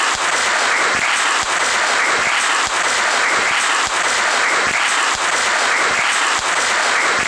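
Audience applause: dense, steady clapping, with a few sharper individual claps standing out about twice a second.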